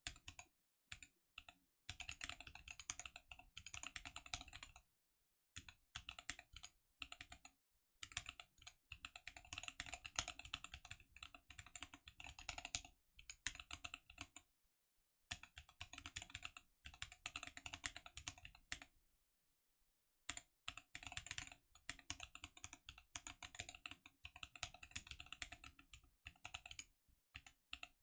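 Typing on a Gherkin 30% mechanical keyboard with Gazzew Boba U4T tactile switches: runs of rapid keystroke clicks in bursts of a few seconds, broken by short pauses.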